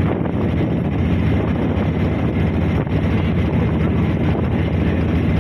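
Wooden motor boat's engine running at a steady cruising drone while under way, with wind buffeting the microphone and water rushing past the hull.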